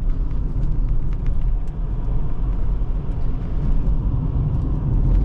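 Steady in-cabin driving noise of a Chrysler 300C with the 3.0 CRDi V6 diesel: engine and tyre rumble with a haze of wind noise, which the driver puts down to perished door seals or air leaking in at the sunroof.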